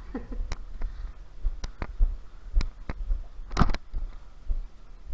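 Scattered sharp clicks and knocks, a dozen or so at uneven spacing, the loudest pair about three and a half seconds in, over a low rumble that comes and goes.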